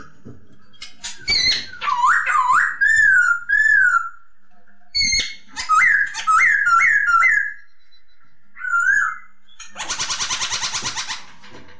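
Poksay (laughingthrush) singing: clear whistled phrases of looping, up-and-down notes in short repeated runs, with pauses between them. About ten seconds in, a harsh, rapid rattling chatter lasts about a second and a half.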